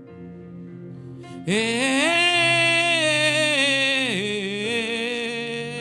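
Slow worship music: soft sustained keyboard chords, joined about 1.5 s in by a loud, long held melodic note that swells up, then slides down around 4 s and settles lower.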